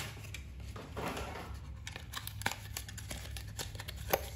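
Cardboard window box and clear plastic tray of a die-cast toy helicopter being handled and pulled apart: crinkling and rustling of the packaging, with a few sharp clicks, one about midway and one near the end.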